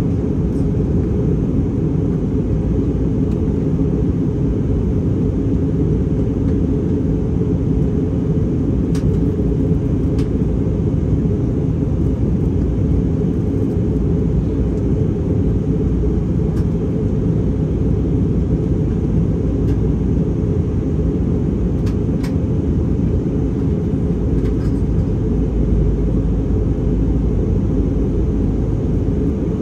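Steady low rumble of an airliner's cabin in flight, the noise of the engines and the air rushing past the fuselage, heard from inside the cabin.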